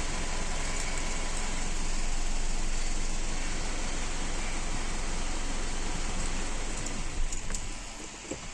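Mitsubishi Triton pickup engine idling steadily just after a push-button start. Its level drops near the end.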